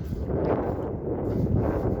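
Wind buffeting the microphone in gusts, a rough low rumble that swells and eases.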